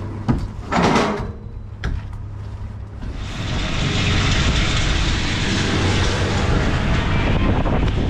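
A machine's engine running steadily, with a few knocks early on from blocks or a lintel being handled; from about three seconds in, a louder, even rushing noise joins and holds.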